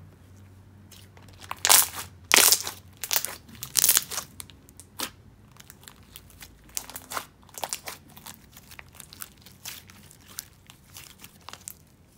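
Thick jelly slime with foam beads being stretched, folded and pressed by hand: irregular sticky crackles and pops, loudest and densest in the first few seconds, then lighter clicking.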